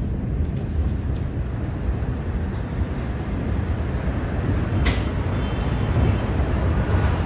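Deep, steady rumble from the massive Beirut port explosion rolling on after the blast, with a couple of sharp clicks about five seconds in and near the end.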